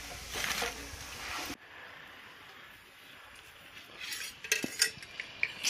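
Metal clinks and knocks from a steel jug and an aluminium basin, a handful of sharp clinks near the end, one ringing briefly.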